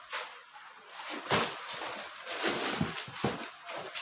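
Boxed product packs and cardboard cartons being handled by hand: rustling and scraping with a few light knocks, the loudest about a second in.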